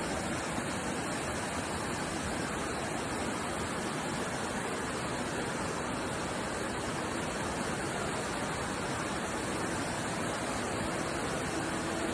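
Steady rushing of fast-flowing floodwater in a swollen river.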